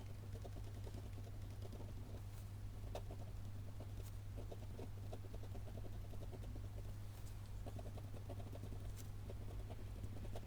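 Sped-up desk work with paper and stationery: rapid small irregular taps, ticks and the odd sharp click of hands handling sticky notes, over a steady low hum.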